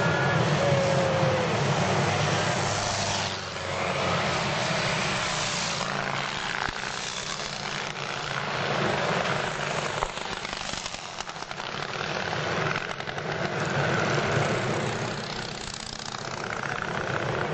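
Antique racing motorcycle engines running hard, the sound swelling and fading several times as bikes pass.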